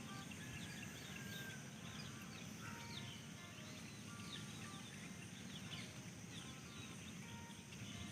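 Faint background ambience with many small birds chirping in short, quick calls over a low steady hum.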